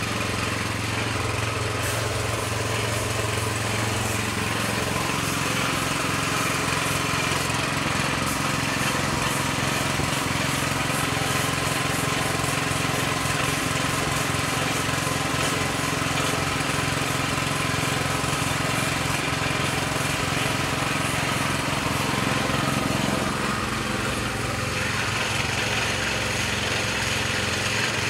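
Air compressor running steadily with a low hum, with the hiss of a gravity-feed spray gun laying clear coat over car paint.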